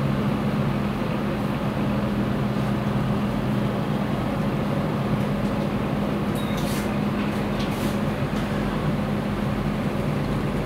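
Steady low drone of motorboat engines on a river, a constant hum under a wash of water and ambient noise, with a few faint brief higher sounds in the second half.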